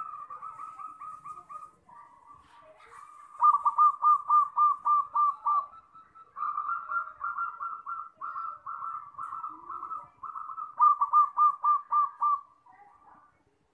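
Zebra dove cooing: quick runs of short, repeated notes on nearly one pitch, about six phrases with brief breaks between them, loudest in the second and last phrases.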